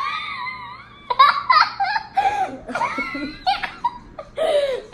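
A child laughing hard: a long high-pitched squeal at the start, then a string of short bursts of laughter.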